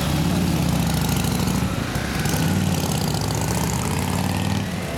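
Motorcycle engines running at low revs as the bikes move off, easing off about two seconds in and picking up again.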